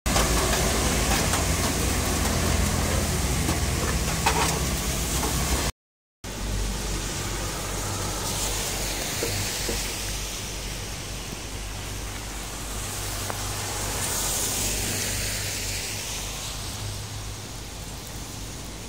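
Steady hiss of traffic and rain on a wet street, tyres swishing on the wet road, with one vehicle passing about three-quarters of the way through. The sound is louder at first and drops out completely for a moment about six seconds in.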